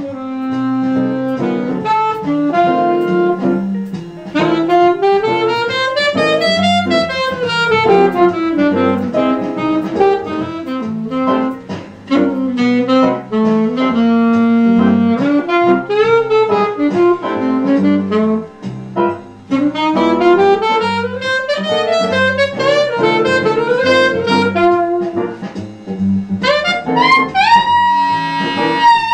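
Saxophone played through a vintage Meyer 5 mouthpiece: a jazz melody of rising and falling runs, with a few long held notes near the end, over a backing track of piano and bass.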